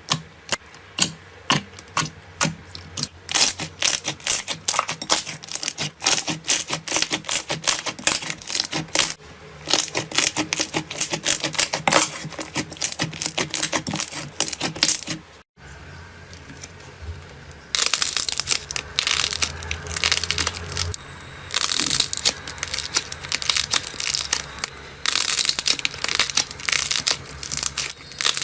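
Hands squeezing and poking crunchy slime: a rapid stream of sharp crackles and clicks. About halfway through it breaks off, then comes back as a denser, noisier crinkling crunch.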